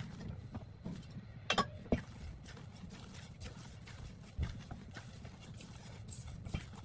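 Scattered light clicks and knocks of food preparation over a low steady hum, with the sharpest knocks about a second and a half and two seconds in.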